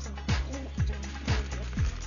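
Electronic dance-style music with a steady kick drum, about two beats a second.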